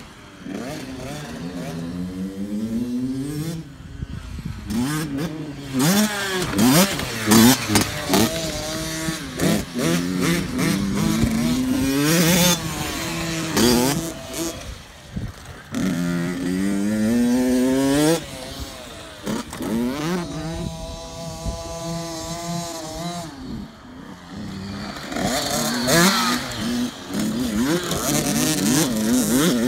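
Small dirt bikes revving around a motocross track, the engine pitch climbing and then dropping back over and over. Loudest about six to eight seconds in.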